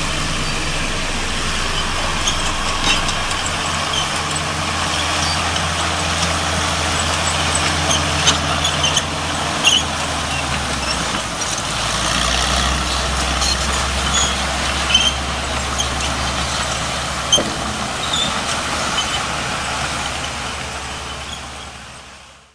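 Heavy diesel construction machinery running steadily, with scattered short metallic clinks and squeaks. The engine note shifts lower about halfway through, and the sound fades out at the end.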